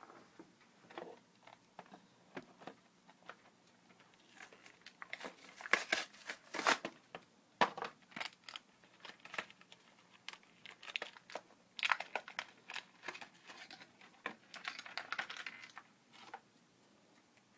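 Plastic toy packaging crinkling and tearing in irregular bursts, mixed with small clicks from handling the Beyblade parts.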